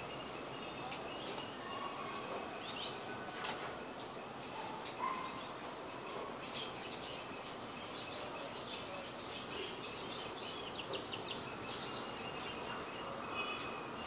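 Small birds chirping in short, high calls scattered over a steady background hiss, with a quick trill of repeated notes a little past halfway.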